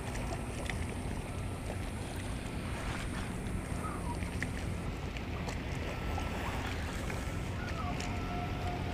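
Steady wind noise on the microphone over water lapping against a kayak's hull, with a few faint clicks.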